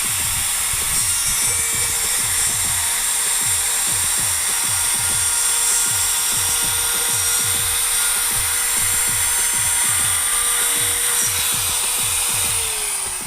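Makita 3709 laminate trimmer (router) running at full speed with a steady high whine, then switched off near the end and winding down, its pitch falling. A music track with a steady beat plays underneath.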